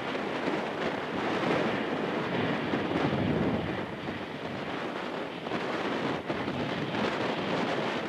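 Case IH 500 Quadtrac tractor running under load as it pulls an anhydrous ammonia applicator through the field, mixed with wind buffeting the microphone.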